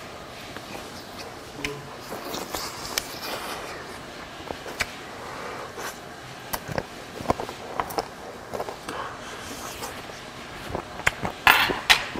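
Close-up eating sounds: a man chewing pieces of boiled chicken, with scattered light clicks of a metal utensil against dishes and a short louder rush of breath or mouth noise near the end.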